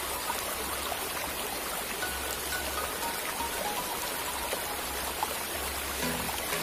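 Steady rush of flowing water, as of a river or stream, with faint music under it that grows stronger near the end.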